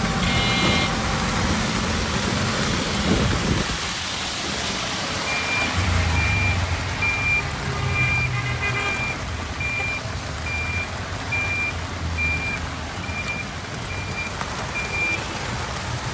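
Rainy city traffic: a steady hiss of rain and tyres with vehicle engines rumbling. A high electronic beep repeats a little faster than once a second through most of the middle, like a reversing alarm, and a brief high tone, likely a horn, sounds near the start.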